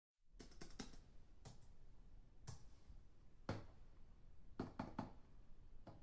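Computer keyboard typing heard from a distance: faint, scattered keystroke clicks. There is a quick run of four near the start, then single keys about a second apart, and a cluster of three near the end.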